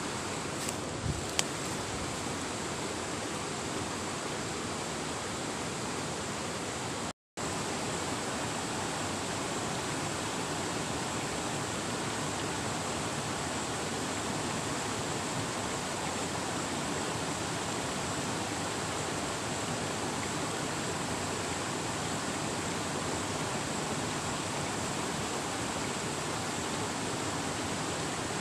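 River water rushing steadily over rocks and shallow rapids, an even rush of noise. The sound cuts out completely for a split second about seven seconds in, and a few faint clicks come in the first two seconds.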